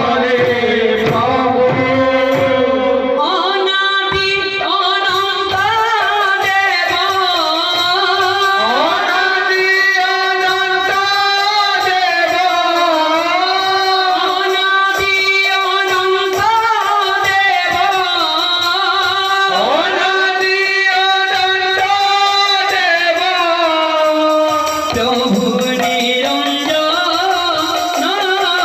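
Devotional kirtan music: a long-held, gliding melody over the strokes of mridanga (khol) barrel drums played by the dancing drummers.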